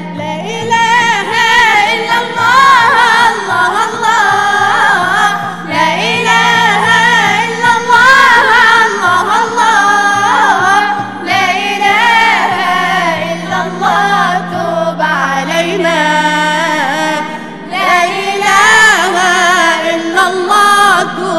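A group of male and female voices singing an Arabic religious song (inshad, a nasheed) together, the melody winding up and down, over a steady low drone and a regular drum beat.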